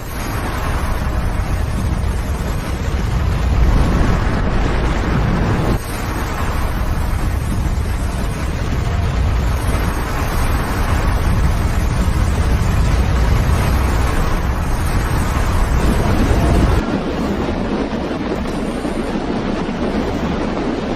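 Avalanche rushing down a mountainside into a river: a steady deep rumble under a broad rushing noise, with wind buffeting the microphone. About 17 seconds in the deep rumble drops away, leaving a lighter rushing noise.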